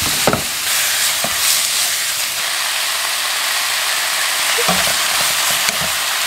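Thin-sliced pork belly sizzling steadily in a hot nonstick wok. A few short knocks come near the start, and a cluster of knocks about five seconds in as a wooden spatula stirs the pan.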